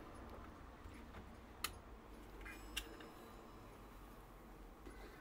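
Quiet room tone broken by two short, sharp metallic clicks, one about one and a half seconds in and another about a second later, as the nested quarter-striking bells are lifted off a brass clock movement. There is no sustained bell ringing.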